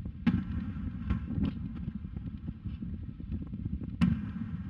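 Distant aerial fireworks shells going off: a sharp boom about a quarter second in and another near the end, with a few smaller pops between, over a steady low rumble.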